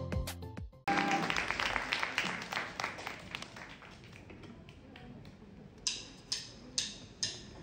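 A short music jingle ends. Audience applause follows and dies away over a few seconds. Near the end come four evenly spaced sharp clicks, about two a second, like a drummer's count-in just before the band starts.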